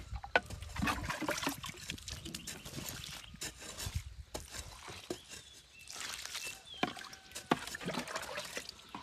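Water poured from a long-handled ladle into planting holes in loose soil, splashing and trickling in several separate pours, with a few sharp knocks as the ladle is dipped into a plastic bucket.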